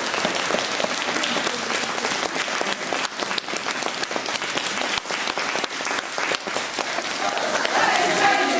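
A crowd applauding with dense, continuous clapping. Near the end a group of voices starts singing over it.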